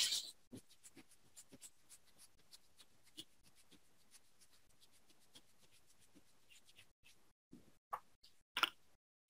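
Faint scratchy rubbing as the freshly soldered area of a MacBook logic board is scrubbed clean with cleaning liquid, with a couple of soft clicks near the end.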